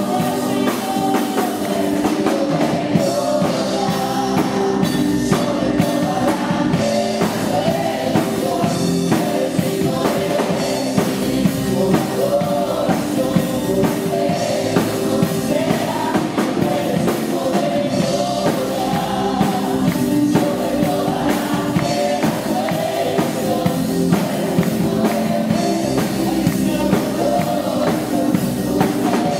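Live band music with singing, and a drum kit played steadily throughout: drums and cymbals under the voices and instruments.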